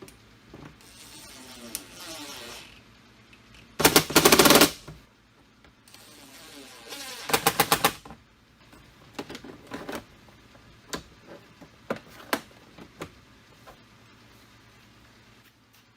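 Two short bursts of rapid mechanical clatter from a tool working the door hardware's fasteners, the second at about ten strokes a second. These are followed by scattered sharp clicks and taps of tools and metal parts being handled.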